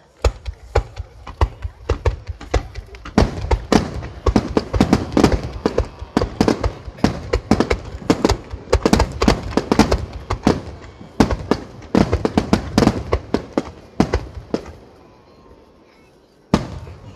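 Aerial fireworks shells bursting in a rapid barrage, a dense run of sharp bangs several a second that thins out about two seconds before the end, with one more bang near the end.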